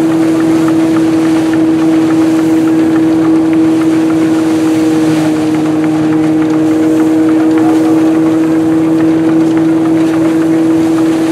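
Vintage threshing mill running at steady speed, a constant hum from its spinning drum over a continuous rattle of straw and working parts.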